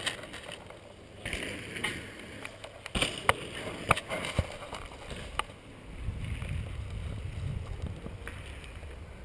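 Handling noise on a handheld camera's microphone: a few sharp knocks and clicks about three to five seconds in, then a low rumble of rubbing or wind on the microphone as the camera is swung around.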